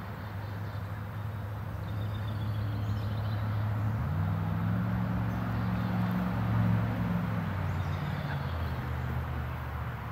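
A low, steady engine-like drone. A second, higher tone joins it about four seconds in. Faint bird chirps sound above it.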